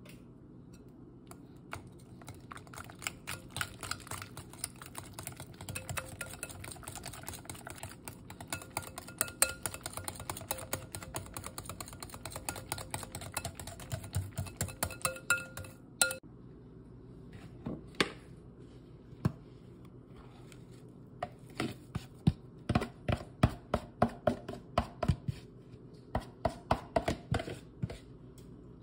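Wire whisk beating a thick cream cheese and egg batter in a glass bowl, its wires clicking rapidly against the glass. The beating stops for several seconds past the middle, with only a couple of single taps, then starts again in quick runs of clicks.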